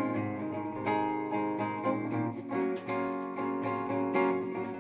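Acoustic guitar played fingerstyle: a steady run of plucked notes and chords ringing on.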